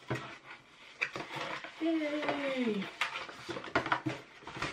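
Crinkly rustling with light clicks and taps as something is handled at close range. About two seconds in, a short tone falls in pitch.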